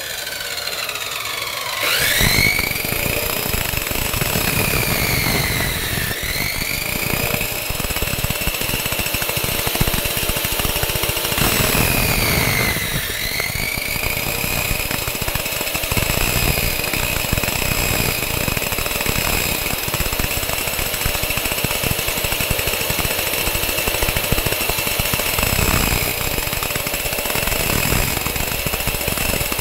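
Abrasive chop saw (cut-off saw) motor winding down, then starting again about two seconds in with a rising whine. Its pitch sags twice, around five and twelve seconds in, as the wheel is pulled down into the metal, then it runs steadily while the wheel grinds.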